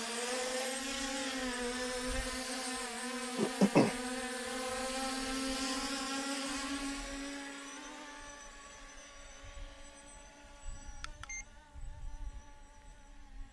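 C-Fly Faith 2 Pro quadcopter's four brushless motors and propellers running in a steady buzzing whine as it lifts off on automatic take-off, fading after about seven seconds as it climbs away. Two short beeps about three and a half seconds in.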